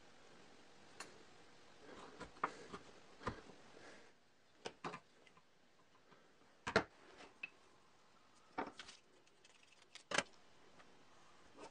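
Scattered light clicks and knocks of small wooden parts being handled on a workbench, about a dozen irregular taps with quiet room tone between, the sharpest in the middle.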